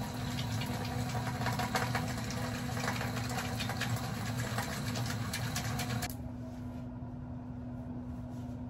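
Steady electric hum of a kitchen appliance's motor running, with a fan-like rush and light ticks. The rush drops away about six seconds in, leaving the hum.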